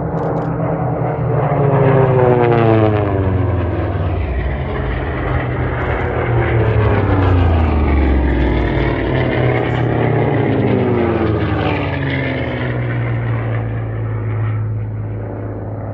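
Piston-engined racing propeller planes flying low past in an air race. Their engines drone loudly, and the pitch drops several times as each plane goes by. The sound fades off near the end.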